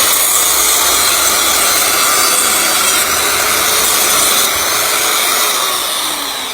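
Circular saw running with its blade in a palm tree trunk, a loud steady rasping whine that can't cut its way in. About four and a half seconds in it begins to wind down, the pitch falling.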